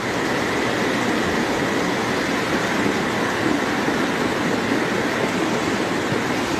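Muddy floodwater rushing steadily down a village street: a small mountain stream swollen by days of continuous rain and overflowing across the road.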